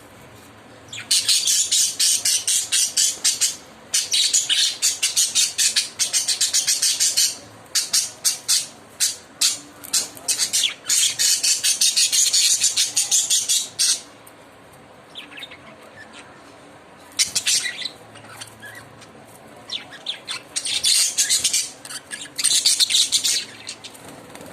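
Lovebirds chattering in runs of rapid, high-pitched chirps, each run lasting a few seconds, with pauses between runs and sparser calls in the last third.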